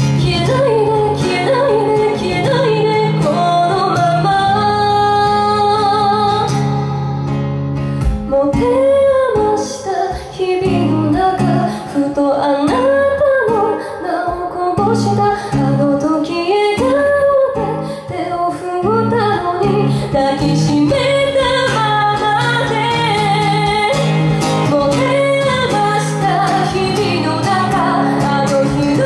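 A woman singing a slow song into a microphone, live, with guitar accompaniment. The guitar drops back about eight seconds in, leaving the voice more exposed, and fills out again about twenty seconds in.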